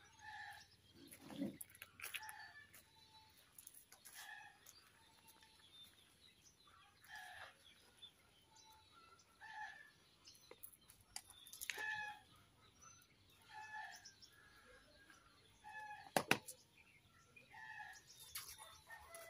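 Chickens clucking faintly: short calls repeating every second or so. A few sharp clicks break in, the loudest about sixteen seconds in.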